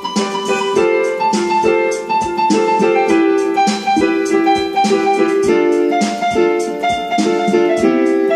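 Background instrumental music: a melody of short, quick notes over chords at a steady level.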